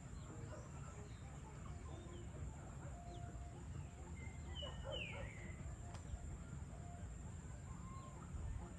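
Chickens clucking and scattered bird calls, with one clearer falling call about five seconds in, over a low steady background rumble.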